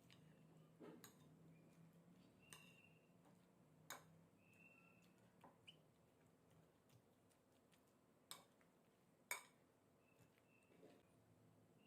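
Faint, scattered clinks and taps of kitchen utensils against dishes: about half a dozen sharp clicks, some with a short high ring, the loudest about nine seconds in.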